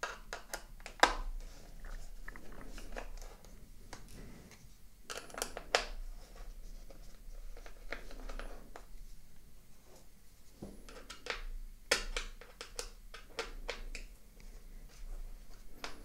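Small metallic clicks and ticks of a Torx T5 screwdriver working the screws out of a Dell XPS 13 laptop's aluminium back cover, coming in three short bursts.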